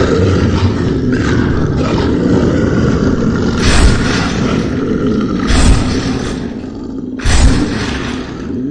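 Deep, rough monster roaring and growling sound effects for a giant werewolf. Three loud outbursts come about two seconds apart in the second half.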